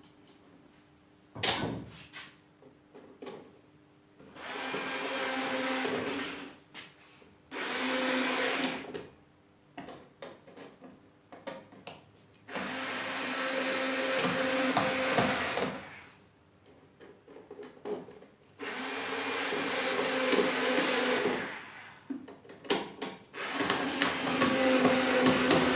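Homemade disc sander driven by a washing machine motor, running in five bursts of about two to three seconds each with a steady hum under a grinding hiss. Small clicks and knocks fall in the quiet gaps between bursts.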